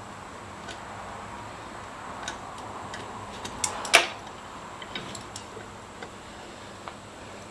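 Scattered small clicks and taps of hand tools and bolts as the intake's mounting bolts are started by hand, with one sharper click about four seconds in.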